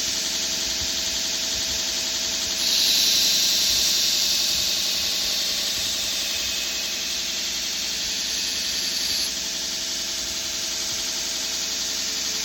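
Knife-grinding machine running steadily. From about three seconds in to about nine seconds in, a steel blade is pressed to it and a louder, high-pitched grinding hiss is heard as the bevels are ground into the blade.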